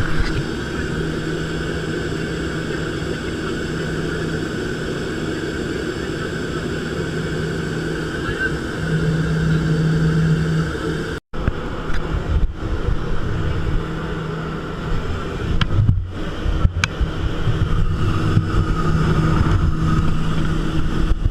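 Steady drone of a propeller aircraft's engine, holding one pitch. It breaks off for an instant about 11 seconds in, then returns with an uneven low rumble.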